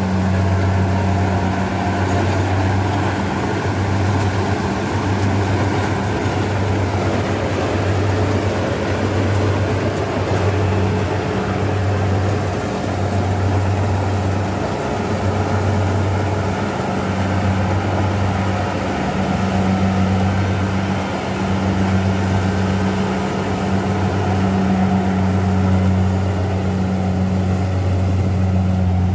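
Kubota combine harvester's diesel engine running steadily under load, a constant low hum over the noise of its cutting header and threshing machinery. It is cutting slowly with the header lowered to pick up lodged rice.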